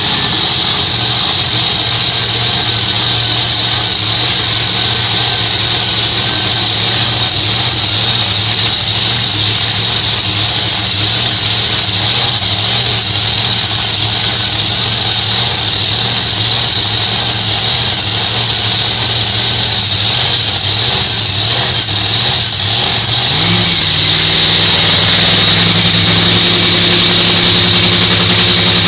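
Nitro Funny Car's supercharged Hemi V8, burning nitromethane, running loud and steady at idle during a pit warm-up. About three-quarters of the way through it is brought up to a higher speed, the pitch rising and then holding there, a little louder.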